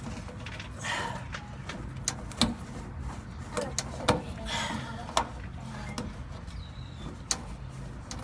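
Hand work on a truck's fuel-line fittings: scattered sharp clicks and knocks with short scraping noises, as a quick-disconnect tool is worked onto the fuel pressure line at the tank. A low steady hum runs underneath.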